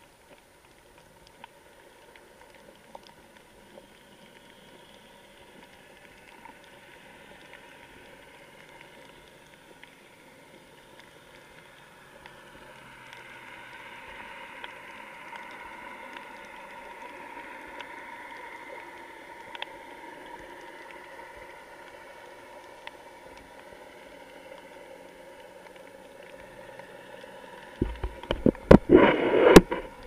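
Underwater ambience picked up by a waterproofed camera: a faint steady hiss with a low hum. Near the end it gives way to loud, ragged splashing and bubbling as water churns around the camera.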